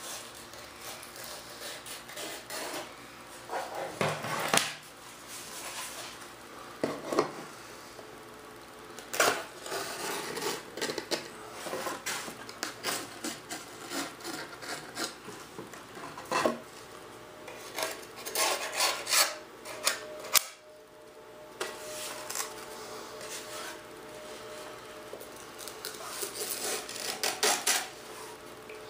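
Single-edge razor blade scraping and trimming cured fiberglass cloth and resin from the edges of glassed wooden panels: irregular scratchy strokes, some sharper and louder than others.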